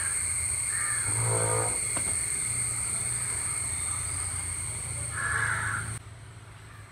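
Two short animal calls, one about a second in and one about five seconds in, over a steady low hum and a high steady whine. The sound drops suddenly about six seconds in.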